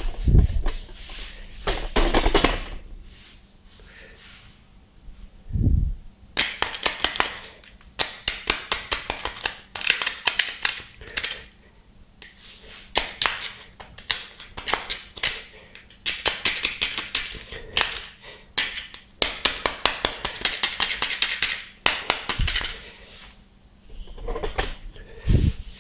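Flat-blade screwdriver scraping hardened limescale out of a water pump's housing, in quick rasping strokes that come in runs of a few seconds. A few dull knocks near the start, about six seconds in and near the end.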